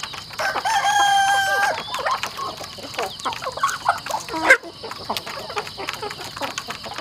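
A flock of chickens clucking while feeding, with a rooster crowing once about half a second in, a single call held for over a second. Sharp ticks of beaks pecking grain from a plastic trough run through it, and a loud short rising squawk comes near the end.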